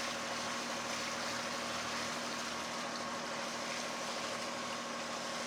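Boat engine running steadily under way, a constant hum over a steady hiss.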